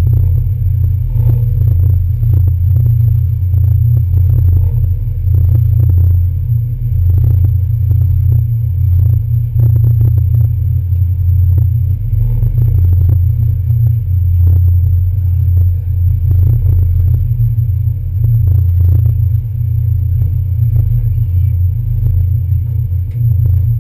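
NY Waterway ferry's diesel engines running with a steady, deep rumble while the boat is held at the pier, with scattered light knocks and footsteps on the deck over it.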